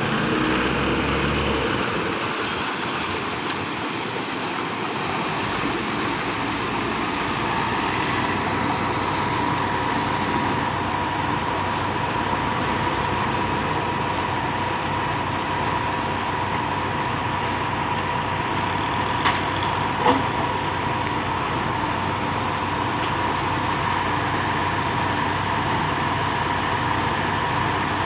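Schwing concrete boom pump running with its engine at a steady idle. A thin steady whine joins about a third of the way in, and two short sharp knocks come about two-thirds of the way through.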